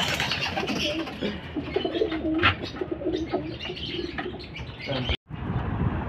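Domestic pigeons cooing, low wavering calls, with a few sharp clicks. The sound drops out for an instant near the end.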